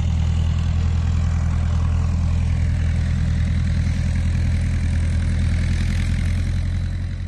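A farm engine running steadily at a constant speed, with a low, even note that does not change.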